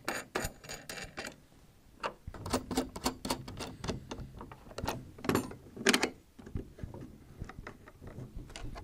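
A wrench tightening the nuts on a saddle tee's bracket clamps: irregular runs of short clicks, some quick groups and some single ones.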